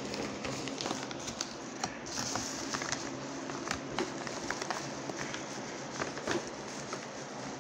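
Rustling and crinkling of a padded paper mailer being handled and opened, with many small scattered clicks and crackles.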